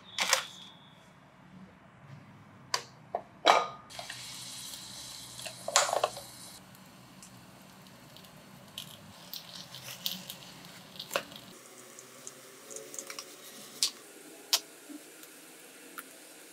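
Kitchen handling sounds: a few sharp knocks and clicks in the first seconds and a brief hiss about four to six seconds in, then a kitchen knife cutting a ripe mango in half on a plastic cutting board, with soft cutting sounds and light taps of the blade.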